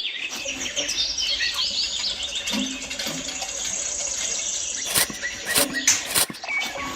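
Small birds chirping: a run of quick high chirps with a steady high trill, and a few sharp clicks about five to six seconds in.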